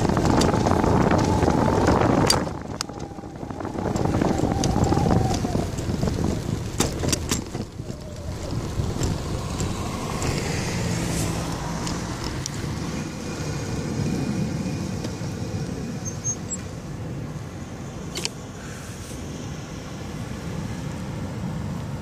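Wind buffeting the microphone of a moving bicycle, with a few sharp clicks; after about eight seconds, with the bike stopped, cars driving through an intersection.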